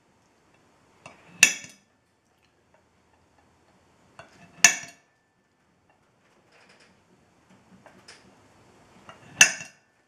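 Spring-loaded automatic center punch snapping three times as it is pressed down onto an aluminum plate: each a sharp metallic click with a brief ring, the second about three seconds after the first and the last near the end. Faint scraping of the punch tip being slid along the plate comes between the snaps.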